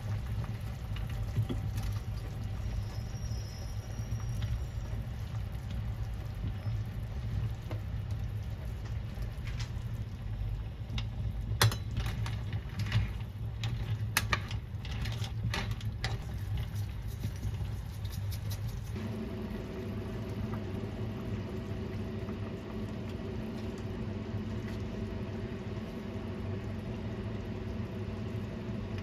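Kitchen cooking noises: a steady low hum throughout, with a run of light clicks and taps in the middle. A second, pitched hum comes in about two-thirds of the way through.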